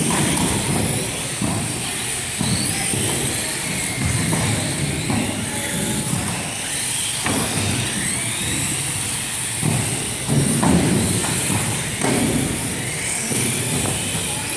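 Small radio-controlled off-road race cars running a race, their motors whining and rising and falling in pitch, with a steady hiss and now and then a thud.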